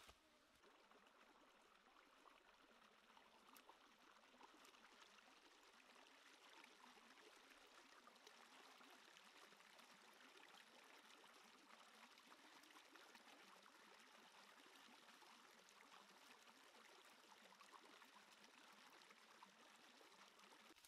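Faint, steady trickle of a shallow rocky stream, with light splashing as a plucked chicken is rinsed in the water.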